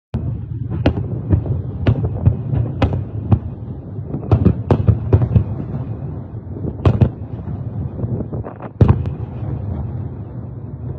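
A series of distant bangs and blasts, about a dozen at irregular intervals, over a steady low rumble. The loudest come about two-thirds of the way in.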